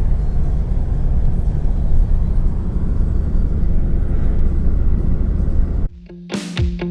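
Steady low rumble of a ute driving along the road. About six seconds in it cuts off suddenly and plucked guitar music starts.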